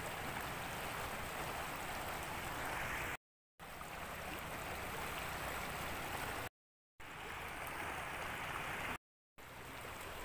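River water flowing with a steady rushing sound, broken three times by short, completely silent gaps where video clips are joined.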